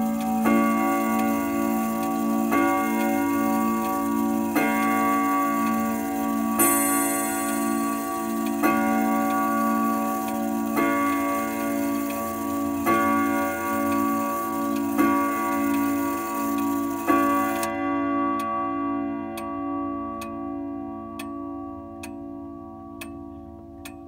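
Grandfather clock striking the hour on its chime rods: a steady series of ringing hammer strokes about every two seconds, each leaving a long pulsing hum. After the last stroke the ringing dies away while the movement keeps ticking.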